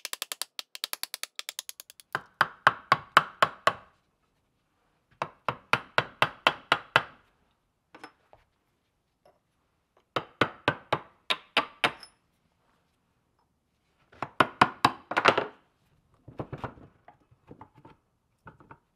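A hammer striking a metal punch against the cast housing of an old screw hoist, in four quick runs of about eight to ten sharp blows each, working the seized housing halves apart.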